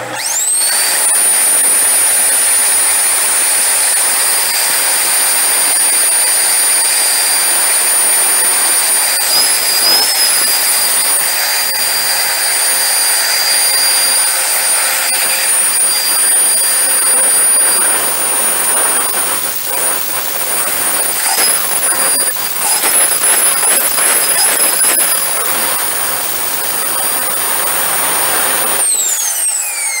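Bare vacuum cleaner motor, out of its housing, switched on: it spins up within a second to a steady high whine with rushing air, its pitch wavering briefly a couple of times. About a second before the end it is switched off and winds down with falling pitch. The repairer judges it to be running fine.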